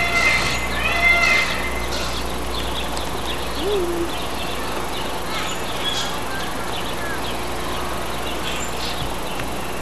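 A few short animal calls that rise and fall in pitch in the first second and a half. Then a steady background hum with faint, scattered bird chirps.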